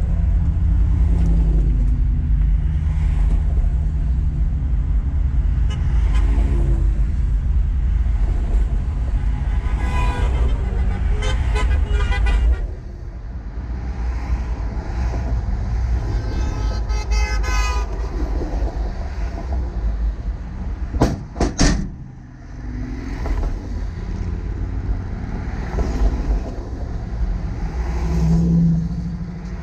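Passing vehicles sounding their horns in two long blasts, about ten and seventeen seconds in, over a steady low traffic rumble that lessens about halfway through. Two sharp cracks come close together a little past two-thirds of the way through.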